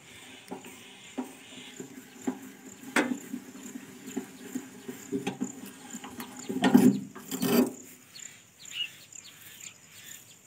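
Irregular metal knocks, rubbing and clatter from parts of a Kamco power tiller's rotary tine assembly and axle being handled, with the loudest clatter about two-thirds of the way through. Crickets chirp steadily in the background.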